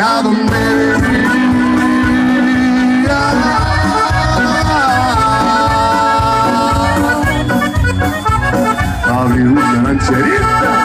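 Live band playing an instrumental break in a Mexican ranchera song: a melody of long held notes over a steady bass beat.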